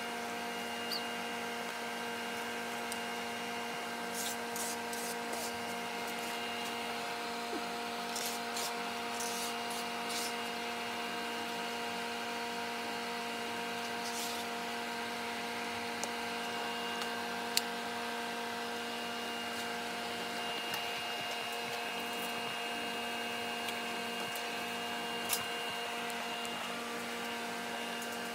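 A steady machine hum with several held tones runs throughout. Light clicks and scrapes of small plastic parts being handled on cardboard are scattered through it, the sharpest a little past halfway and another near the end.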